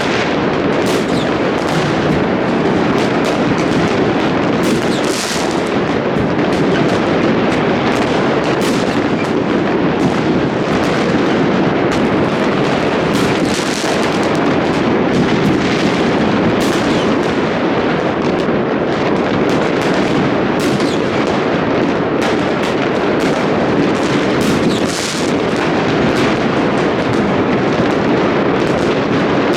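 Many New Year fireworks and firecrackers going off at once: a continuous barrage of overlapping bangs and booms with crackle, with brighter crackling bursts now and then.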